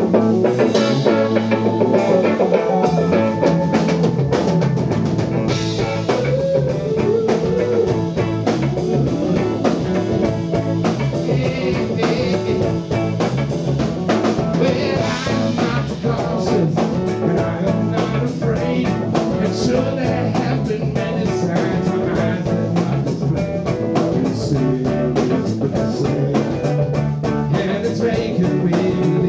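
Live blues band playing: electric guitar to the fore over bass guitar, keyboard and drum kit, with a steady beat.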